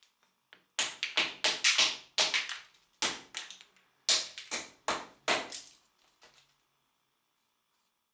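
Bearded axe chopping a wooden block on a chopping stump: about a dozen sharp wooden chops and knocks in quick succession over some four seconds, then stopping.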